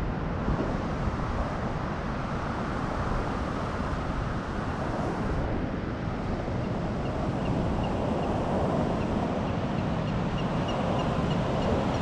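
Ocean surf washing onto a sand beach, heard as a steady rush under heavy wind buffeting on the microphone. Faint rapid high ticks come in over the second half.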